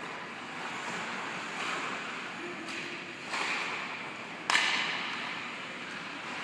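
Ice hockey skates scraping and carving on the ice, swelling into hissing scrapes about one and a half and three seconds in. A single sharp crack, the loudest sound, comes about four and a half seconds in.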